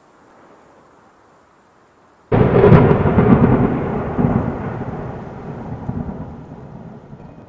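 Thunderclap sound effect: a faint hiss, then a sudden loud crack a little over two seconds in that rumbles and slowly dies away over about five seconds.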